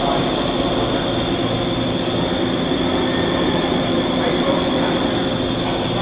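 Steady rumbling background noise with a constant high-pitched whine running through it.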